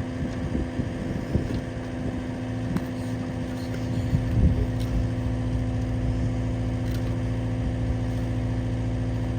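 An engine running steadily at a constant speed, with an uneven low rumble over the first half before it settles into an even drone.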